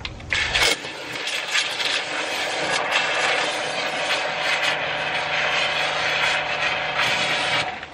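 Kränzle 1122 TST pressure-washer wand spraying a jet of water into a bucket of soapy water, whipping it up into suds: a steady rushing hiss. It starts about a third of a second in, a steady hum joins about halfway, and the spray cuts off just before the end.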